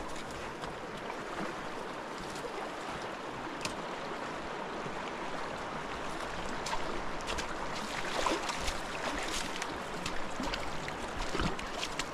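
A large river rushing over rocks in a steady noise, with scattered short clicks in the second half.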